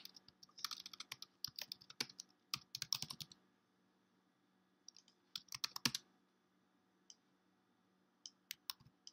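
Typing on a computer keyboard: quick runs of keystrokes for the first three seconds or so, a pause, a short burst around five to six seconds in, then a few single key presses near the end, over a faint steady hum.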